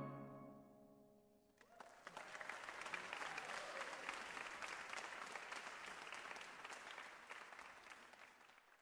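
The final chord of a steel band dies away over the first second and a half, then an audience applauds, the clapping fading out near the end.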